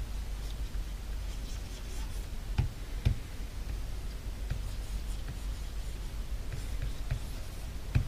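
A pen writing and tapping lightly on a desk surface, with a few sharper taps about two and a half seconds in, at three seconds and near the end, over a steady low hum.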